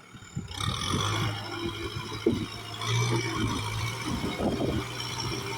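Kubota tractor engine running, getting louder about half a second in and then working steadily, with rattling and clanking from the machine.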